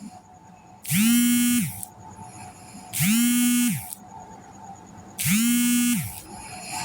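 Snoring: three buzzy snores about two seconds apart, each under a second long and held on one steady pitch.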